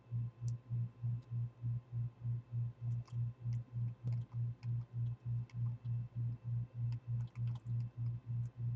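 A low hum pulsing evenly about four times a second, with scattered small light clicks from a small screwdriver working the tiny screws of a laptop screen bezel.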